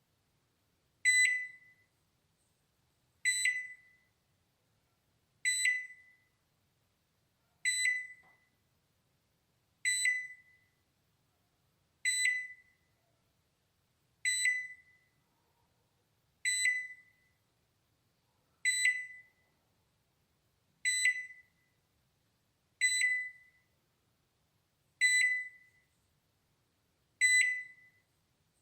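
Balay microwave oven's timer alarm: a single high ding that fades quickly, repeating about every two seconds, the signal that the cooking cycle has finished.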